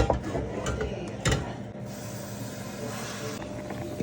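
Kitchen handling sounds: two sharp knocks, about a second apart, then a short steady hiss lasting about a second and a half, over a steady low hum.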